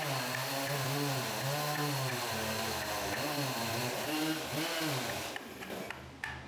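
Chainsaw engine running, its pitch dipping and rising again and again as the load changes. It dies away about five seconds in, leaving a few light clicks.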